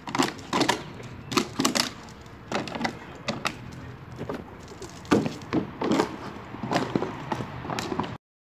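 Empty plastic water bottle crackling and crunching in short, irregular bursts as a dog bites and snaps at it.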